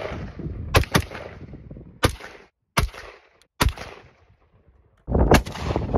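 AR-style BB air gun firing single shots: about five sharp cracks, each with a short ringing tail, at uneven intervals. A louder, busier stretch of reports starts about five seconds in.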